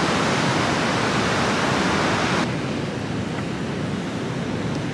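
Ocean surf breaking on a beach: a steady rushing noise that drops a little and loses some of its hiss about two and a half seconds in.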